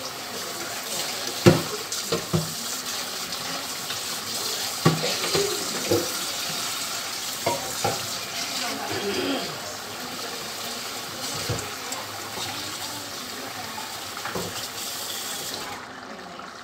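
Rice and pigeon peas at a rolling boil in seasoned broth in a large aluminium pot: a steady bubbling hiss with scattered sharp pops. The liquid still stands above the rice.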